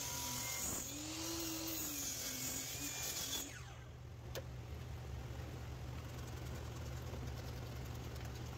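Hercules sliding miter saw cutting a miter through a pine 2x8 board: the motor's whine rises and falls under the rush of the blade in the wood, then stops sharply about three and a half seconds in. A single click follows, and a steady low hum continues.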